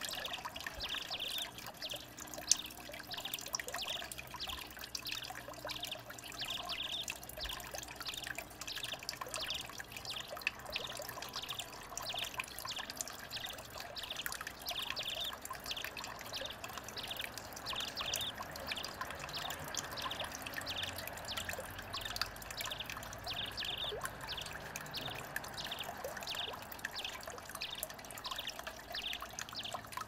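Water trickling and pouring steadily over the stone steps of a garden water feature, with frequent small splashes from house sparrows bathing and fluttering their wings in the shallow pools.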